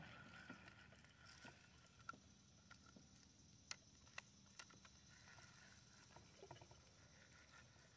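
Near silence, with a few faint sharp clicks between about two and five seconds in, from a fishing rod and reel being handled while line is reeled in.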